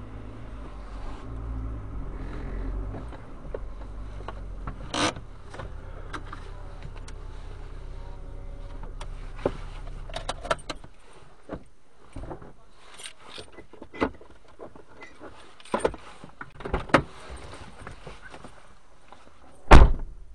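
Car engine running at low revs as the car manoeuvres into a parking space, then switched off about halfway. Scattered clicks and knocks inside the cabin follow, ending in one loud thump near the end.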